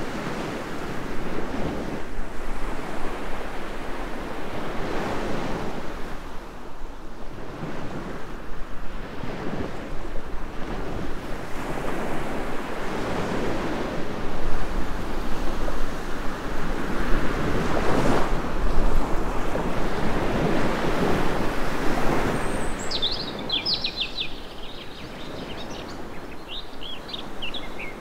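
Surf washing onto a beach, the rush of the waves swelling and fading about every four seconds. Near the end, birds start chirping.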